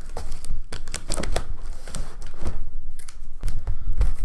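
A large corrugated cardboard shipping box being opened: packing tape ripped along the seam and the flaps pulled apart and folded back, giving a quick run of rips, scrapes and crackles. Dull low bumps come near the end.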